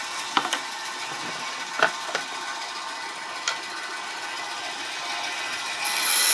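Bandsaw running steadily, with a few light clicks of wooden pieces being handled on its table. Near the end the blade briefly cuts into the wooden strip, a short high-pitched cutting sound, trimming back the point of a spear joint piece.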